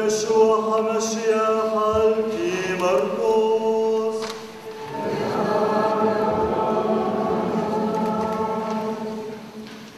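A man chants a liturgical line alone, unaccompanied, his voice gliding between long held notes. About five seconds in, a congregation answers with a sung response that fades away near the end.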